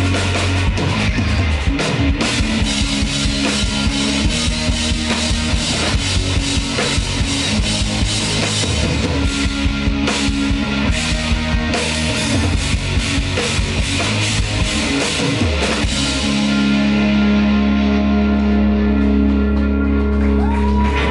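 Live instrumental rock from two electric guitars, bass guitar and drum kit. About 16 seconds in the drumming stops and the band holds one long chord.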